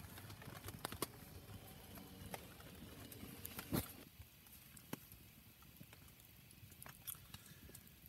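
Wood fire burning in a small mud-built stove, giving faint, scattered crackles and ticks, with one sharper pop just before four seconds in.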